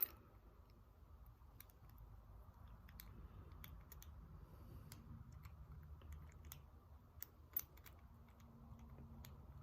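Near silence with faint, scattered small clicks and taps from a padlock and small tools being handled during disassembly, one click a little louder about seven and a half seconds in.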